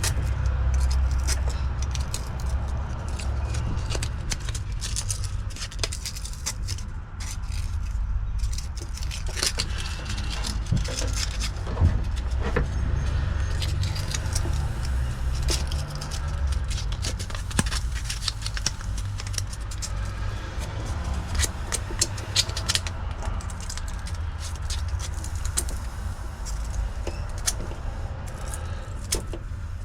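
Sandpaper rubbing and scraping on wiring, with many small clicks and rattles from handling the wires and parts, over a steady low rumble.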